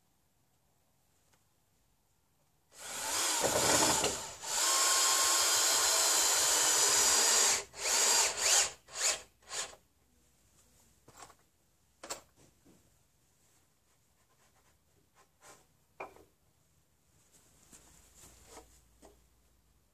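Power drill working into a wooden roof batten: it spins up and runs for about five seconds with a brief dip partway, then gives several short bursts on the trigger. After that come only a few faint knocks and clicks.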